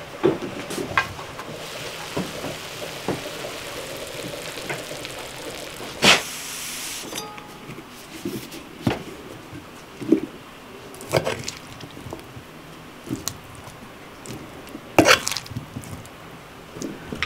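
Kitchen handling sounds: scattered clinks, scrapes and soft knocks as fried potato and meat are moved from a cast-iron skillet into a hollowed pumpkin on a metal baking tray. Two louder sharp clanks stand out, one about six seconds in and one near the end.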